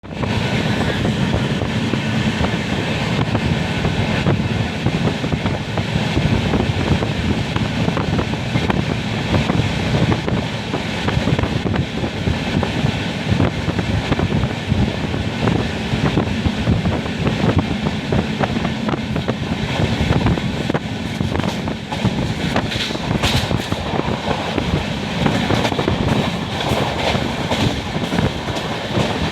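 Passenger train running through a railway station without stopping: a steady rumble of the coaches with continuous clatter of wheels on the track.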